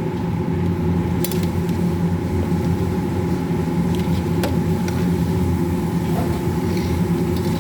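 A steady, even machine hum with no change in pitch, with a couple of faint light clicks over it.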